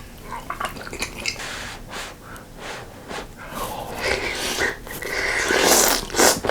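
Close-up eating sounds of ramen noodles and spicy sausage stew: wet chewing and short sucking noises, then one long, loud slurp near the end.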